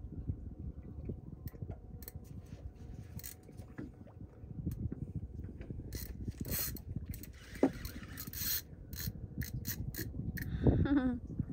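Large spinning reel being cranked against a heavy fish that will not come up, the reel and line rubbing and scraping under load over a steady low rumble. A brief louder sound that falls in pitch near the end.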